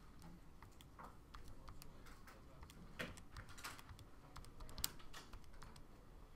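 Faint, irregular clicking of keys being pressed, a few light taps a second with a sharper click near the end.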